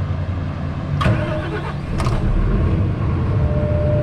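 Large Red-D-Arc diesel generator engine being started on the key: two sharp clicks about a second apart, then the engine catches and runs louder at low speed, with a steady whine coming in near the end.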